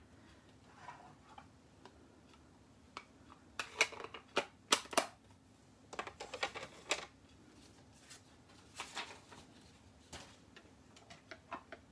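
Light clicks and taps of stamping supplies being handled and put away on a wooden tabletop, in irregular clusters.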